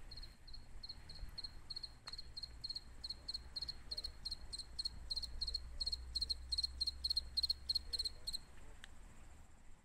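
A cricket chirping in a steady high-pitched rhythm of about three short chirps a second. The chirps grow louder and come as quick double pulses through the middle, then stop about eight and a half seconds in, over a low steady hum.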